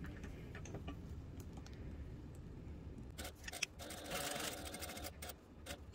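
Industrial sewing machine topstitching a vinyl-covered tube handle: light needle and feed clicks, with a short, quiet run of the machine about four seconds in.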